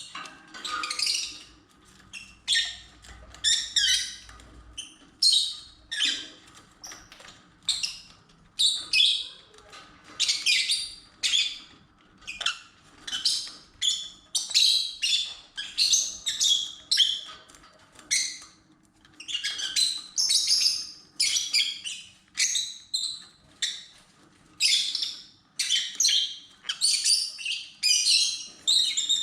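Lovebirds chirping continuously, a run of short, shrill chirps coming about one or two a second with hardly a pause.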